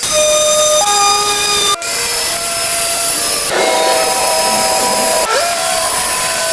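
Power tools running with a steady high whine over a hiss. The pitch changes abruptly three times, about every one and a half to two seconds, as one tool's sound cuts to another's.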